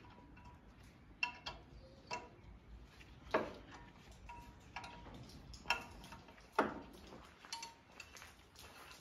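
A 12 mm wrench working the bolts loose on a tractor's top-link hook bracket: about eight irregular sharp metal clinks and ticks, several ringing briefly.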